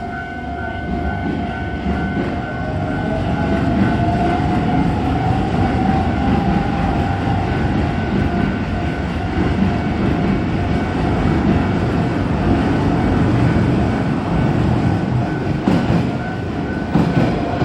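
Keisei Main Line electric train passing over a level crossing, its wheels rumbling and clacking on the rails, louder from about two seconds in. The crossing's electronic warning bell keeps ringing, partly drowned by the train.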